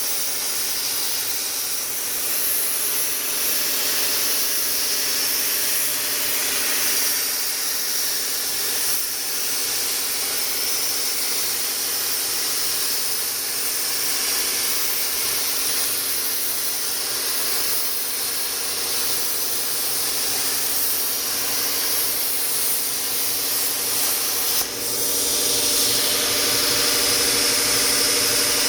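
CNC plasma cutting machine's torch cutting metal: a loud, steady hiss with a constant hum beneath it, broken briefly about 25 seconds in.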